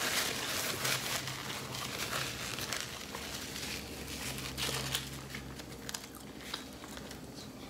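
Crinkling of a burrito's foil-and-paper wrapper being handled, loudest in the first second, with chewing and scattered small rustles and clicks of food being handled.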